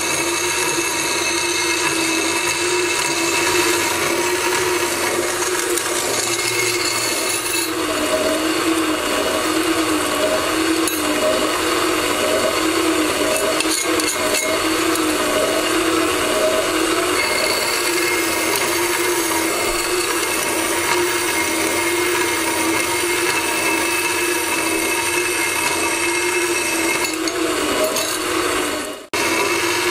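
Hitachi bench band saw running steadily, its blade cutting through a stack of flat steel bars. The sound drops out for a moment near the end.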